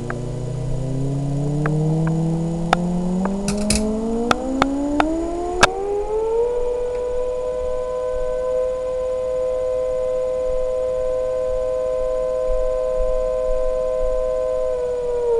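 Small electric motor, an air-mattress pump, spinning up with a rising whine for about six seconds, then running at a steady pitch, and starting to wind down at the very end. It stands in for the toy car's engine. A few sharp clicks come in the first six seconds.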